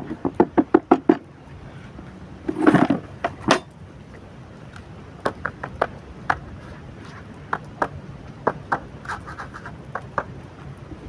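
Bread-based groundbait being worked through a riddle over a plastic bucket to break up lumps and fluff it up: a quick run of rhythmic taps in the first second, a scraping rustle near three seconds, then scattered light taps and knocks as the riddle is shaken.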